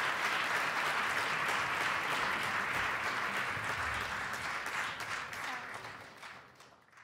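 Audience applauding, fading out over the last two seconds.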